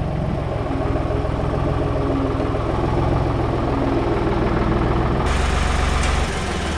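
Engine running steadily with a low, heavy hum; its sound shifts abruptly about five seconds in.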